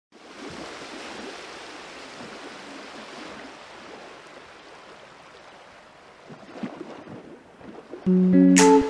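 Ocean surf washing onto a beach, a steady rushing noise that slowly fades. About eight seconds in, strummed guitar music starts.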